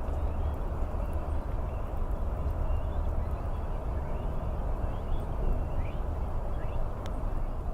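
Steady low outdoor rumble and hiss, with a few faint, short rising bird chirps in the middle and a single sharp click near the end.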